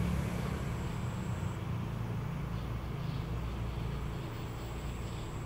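Steady low background rumble with a faint thin high whine in the first second and a half and again near the end.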